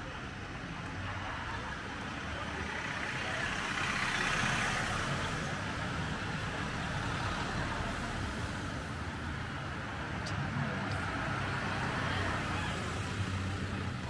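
A car passing close by at low speed, its engine and tyre noise swelling to a peak about four seconds in, easing, then rising again near the end.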